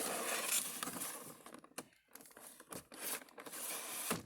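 Toy packaging being handled: crinkling and rustling, with a short lull about two seconds in.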